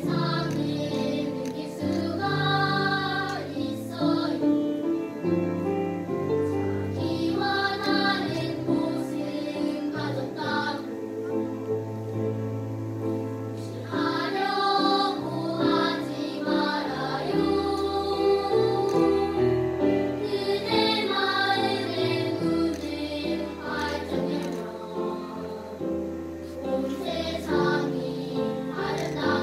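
Children's choir singing a slow song with grand piano accompaniment, the piano's low notes held beneath the melody.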